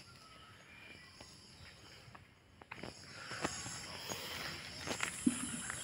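Footsteps on a gravelly dirt road, a few scattered crunches, over a steady high insect chorus; a short low sound comes near the end.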